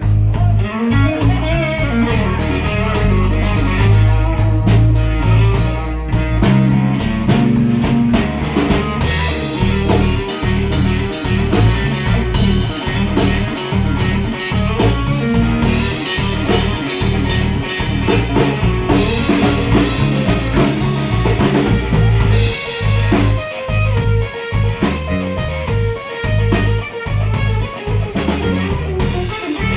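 A band playing blues-rock, with guitar and a drum kit.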